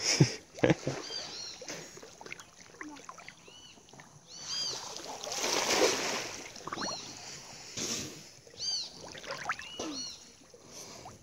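Water splashing and dripping as a cast net is gathered in by a man wading waist-deep, with a louder splashy wash about halfway through. Short high arching bird chirps repeat every couple of seconds.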